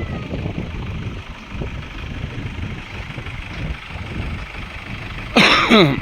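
Vehicle engine and road rumble, steady and low. Near the end comes a brief, loud sound that falls in pitch.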